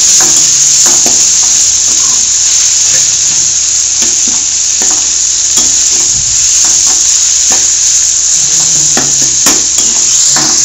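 Chopped onion, tomato, garlic and curry leaves sizzling steadily in hot oil in a metal kadai, the tomatoes frying down to soften. A steel ladle scrapes and taps against the pan again and again as they are stirred.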